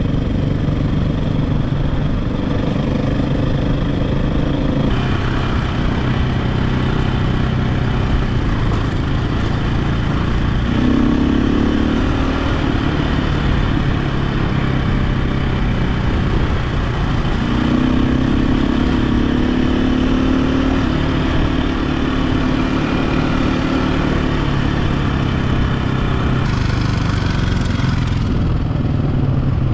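KTM 520 dirt bike's single-cylinder four-stroke engine running under way, its note shifting up and down several times.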